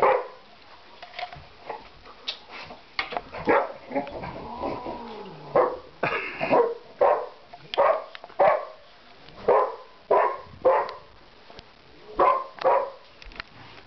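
A dog barking, a string of short sharp barks coming about one every half second to a second from about five seconds in, with a drawn-out falling whine shortly before.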